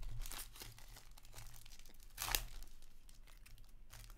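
A foil trading-card pack from a box of Upper Deck SP Game Used hockey cards being torn open and crinkled in the hands, with one sharp rip about two seconds in.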